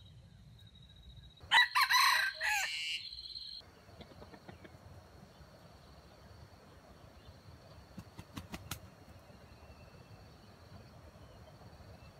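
Jungle fowl rooster crowing once, a single crow of about two seconds beginning about a second and a half in. A few sharp clicks follow later.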